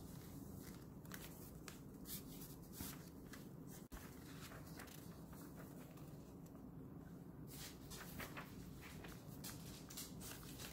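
Faint rustling and crinkling of paper as the pages of a handmade junk journal are turned and handled, in many short, scattered bursts.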